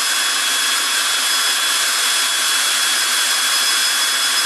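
Cordless drill running steadily in low gear at a fairly fast speed, driving an EZ-Set winder to wind up a garage door torsion spring. A steady high whine rides over the motor noise.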